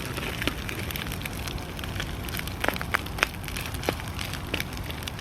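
Rice frying in oil in a non-stick pan, sizzling steadily with a scatter of sharp crackles, a few louder ones around the middle.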